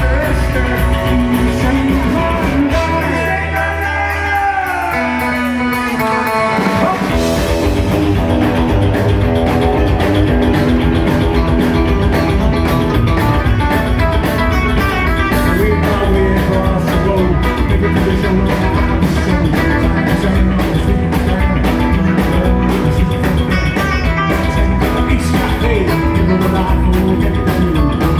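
Rockabilly band playing live: electric guitar, drum kit and bass. About three seconds in the band thins out to a guitar bending notes over a held low note, and the full band comes back in about seven seconds in.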